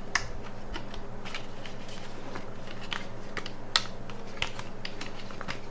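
Scattered small clicks and taps of hands and a screwdriver working on a 9.5 mm laptop optical-bay HDD caddy, with a sharper click about a second in and again near the end. A low steady hum runs underneath.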